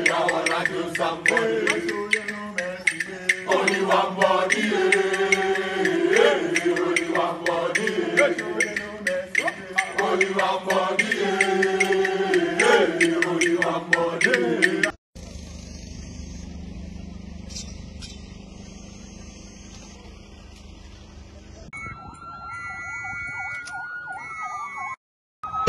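Loud rhythmic group chanting with music, which cuts off suddenly about halfway through. A quieter stretch of outdoor noise follows, and near the end a steady high tone like a siren sounds and then falls in pitch before stopping.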